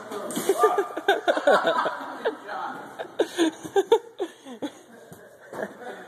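People laughing in quick bursts of short, falling-pitch laughs that thin out after about four and a half seconds.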